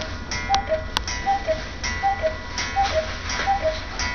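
A 1920 cuckoo clock calling the hour with its two-note cuckoo, high then low, repeated about every three quarters of a second, five calls in a row, with light clicks of the mechanism.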